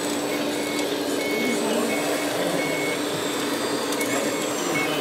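Short high electronic beeps of uneven length, typical of a model vehicle's reversing beeper, sound half a dozen times over a steady low hum and the busy noise of a large hall.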